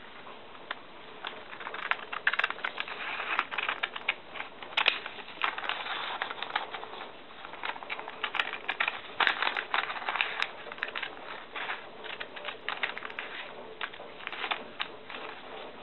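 Scissors cutting through thin phonebook paper, with irregular crisp snips and the paper crackling and rustling as it is handled.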